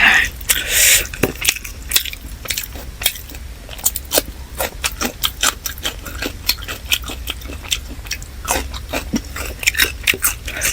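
Close-miked chewing of chicken biryani: irregular wet mouth clicks and smacks, many to the second.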